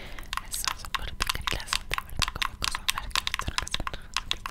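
Close-miked ASMR tapping and clicking: long fingernails tapping rapidly and irregularly, several crisp clicks a second, mixed with the soft mouth clicks of inaudible whispering.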